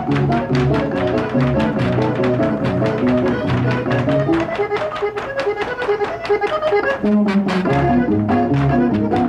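Accordion-led Mexican regional dance music with a quick, steady beat over alternating bass notes; the bass drops out for a few seconds in the middle and then returns.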